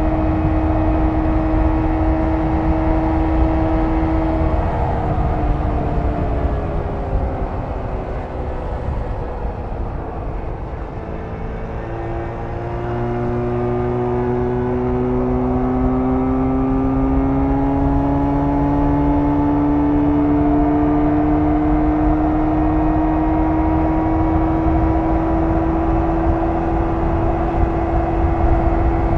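1994 Jawa 350 (type 638) two-stroke twin engine running on the move, with wind rumble on the microphone. The engine note drops as the throttle closes about five seconds in, stays low for several seconds, then climbs slowly and holds steady as the bike pulls again.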